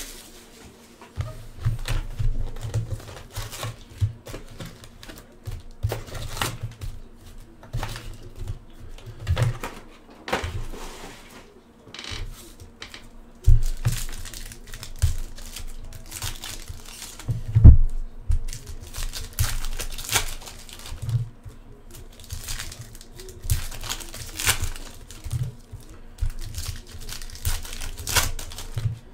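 Foil trading-card packs being torn open and crinkled by hand, an irregular run of crackles, rustles and small knocks against the table. One loud thump a little past halfway.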